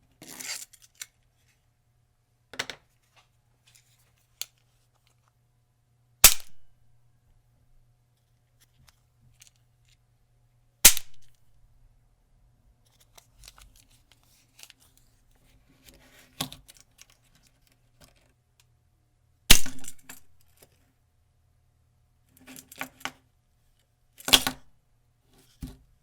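Snap mousetrap being set and sprung again and again: four loud, sharp snaps a few seconds apart, with smaller clicks and rattles of the trap being handled in between.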